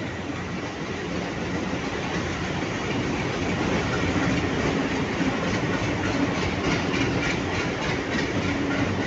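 A pair of diesel locomotives hauling a passenger express past: steady engine noise growing louder, with a rhythmic clickety-clack of wheels over rail joints in the second half.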